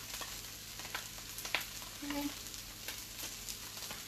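Food sizzling in a hot frying pan, with a few sharp clicks and scrapes of a spoon scooping canned chili out of the can into the pan.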